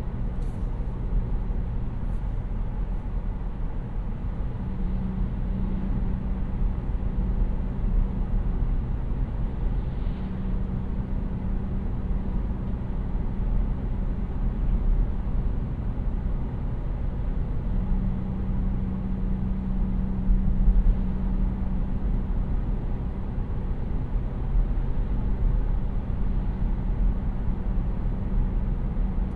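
2018 Kia Niro 1.6 GDi hybrid driving: steady low road and tyre rumble, with a low steady hum that comes and goes several times.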